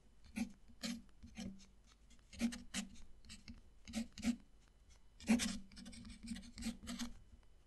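A steel-nibbed fountain pen scratching across textured paper as it writes, in a series of short strokes.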